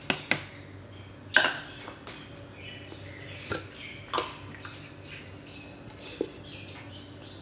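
Several sharp clicks and knocks of kitchen utensils and containers: a measuring cup and plastic tub set down and handled while flour is measured out. Two quick knocks at the very start, a loud one about a second and a half in, and softer ones later.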